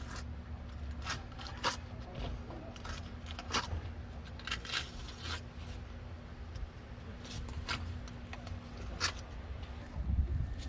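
Irregular short scraping strokes of a blade or scraper working along a veranda window frame, as when old silicone sealant is cut and scraped away before resealing, over a steady low hum that stops near the end.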